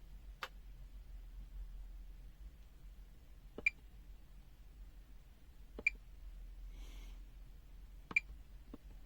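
Three short electronic beeps from a digital multimeter's buzzer, about two seconds apart, after a faint click near the start.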